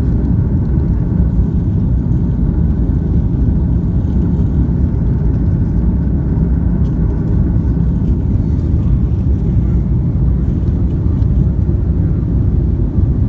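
Steady low roar of a jet airliner's engines and airflow inside the passenger cabin during the climb after takeoff.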